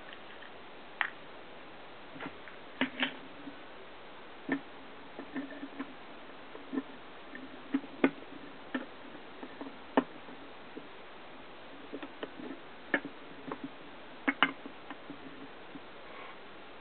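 Irregular sharp clicks and light taps of steel forceps and small metal pieces being handled against a glass Petri dish, with a few louder snaps from the forceps being closed.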